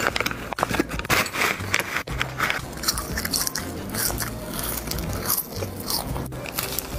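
Crisp, crunchy bites and chewing of spicy puffed snack sticks, a rapid crackle of brittle snapping.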